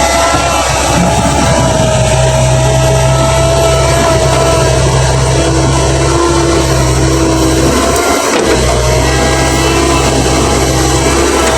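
Komatsu excavator's diesel engine running steadily under work, with a steady whine over it; the low rumble dips briefly about eight seconds in.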